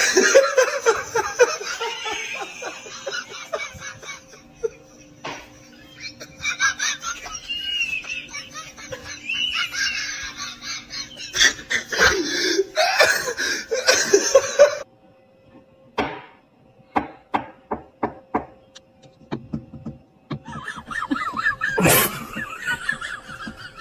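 Bursts of laughter, then a quieter stretch with a run of short sharp taps, about three a second. A loud single hit comes near the end, followed by more laughter.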